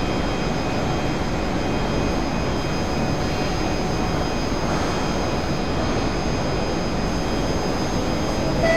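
Steady hum and rush of an MRT train standing at the platform with its doors open, with a few faint steady high whining tones over it.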